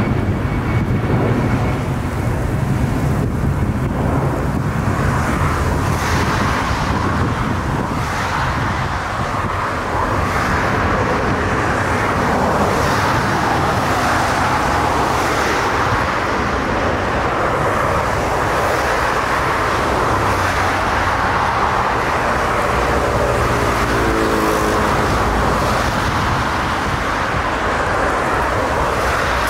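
Twin-engine jet airliner landing in a crosswind: a loud, steady rush and rumble of jet engine and air noise through the approach, touchdown and rollout.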